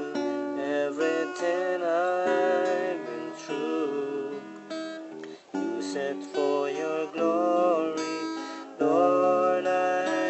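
Music: a slow song carried by a strummed acoustic guitar.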